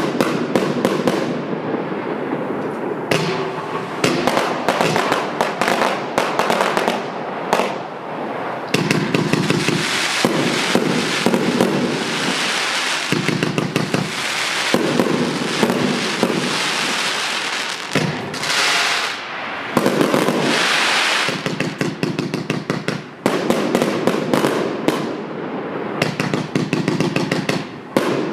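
Vivid Pyrotechnics El Loco compound firework cake firing its 25 mm and 30 mm tubes: a fast, continuous string of shots and bursting shells that comes in dense flurries with brief lulls.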